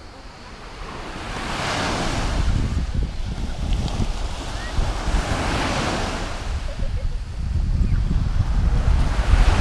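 Small waves breaking and washing up a sandy shore, surging three times, about every three to four seconds. Wind buffets the microphone, heavier in the last couple of seconds.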